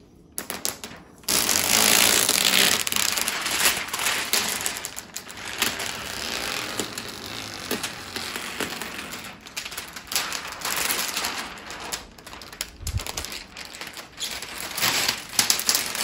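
Thin plastic screen-protector film being peeled off a flat-screen TV's glossy screen: a rasping peel noise full of small ticks. It starts sharply about a second in, is loudest for the next couple of seconds, then goes on unevenly.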